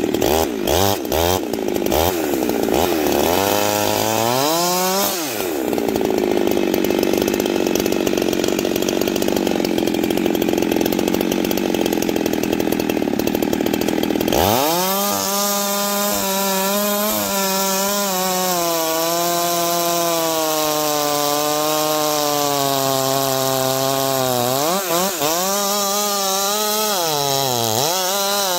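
Husqvarna 390 XP chainsaw's two-stroke engine at full throttle cutting a large log. It opens with a few throttle blips and a rev-up, then runs with a steady, dense sound in the cut. About halfway through it screams at high revs with the pitch wavering, dipping twice near the end as the chain bites into the wood again.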